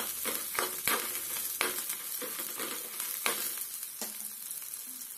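Dry red chillies frying in a little oil in a metal kadai, stirred with a metal spoon that clinks and scrapes against the pan, over a faint sizzle. The strokes come every third to half second at first and grow fewer toward the end.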